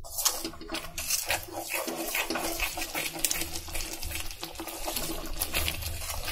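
Ginger and country-sugar syrup bubbling in an iron pan while a spoon stirs and scrapes through it: a continuous crackle of many small pops and clicks.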